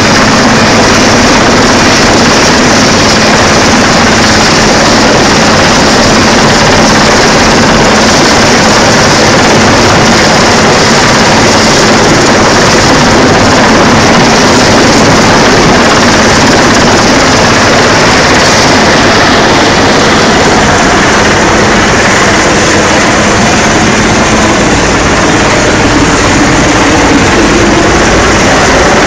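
Coast guard helicopter hovering overhead during a winching drill: very loud, steady rotor and turbine noise that does not let up.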